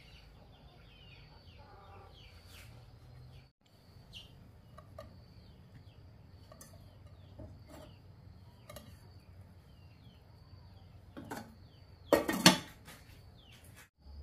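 Farmyard ambience: faint, short falling chirps from birds repeat throughout over a steady high insect whine. A loud clatter with two peaks comes about twelve seconds in.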